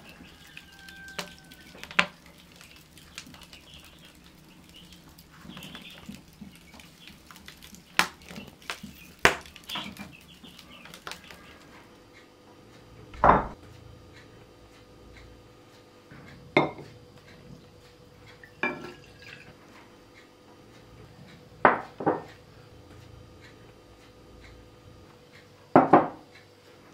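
Crockery and a metal spoon knocking and clinking on a wooden kitchen table: sharp single clatters several seconds apart, the loudest near the middle and at the end. A faint steady hum runs under the second half.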